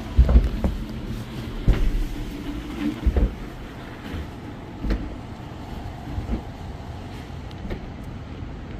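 City street traffic: a steady low rumble of passing vehicles, with several heavy thumps in the first few seconds.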